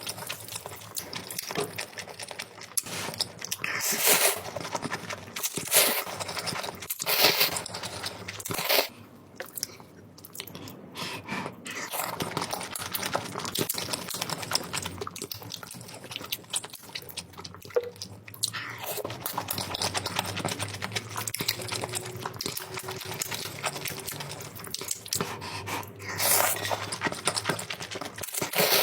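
Close-miked mukbang eating of instant noodles and sausage: steady chewing and biting with wet, crackly mouth sounds, and a few louder noisy bursts a few seconds in and again near the end.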